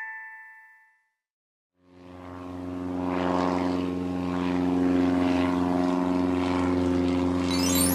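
A few chime tones die away, then a moment of silence. A steady engine drone, like a propeller plane's, fades in and holds an even hum. Near the end a high rising whistle sweeps up over it.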